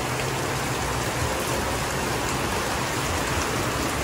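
Heavy rain falling steadily, drumming on a fabric umbrella held overhead and splashing on the wet street.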